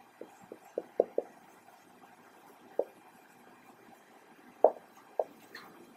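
Marker pen on a whiteboard while words are written: a few faint, short taps and strokes, five close together in the first second or so, then one near the middle and two more near the end.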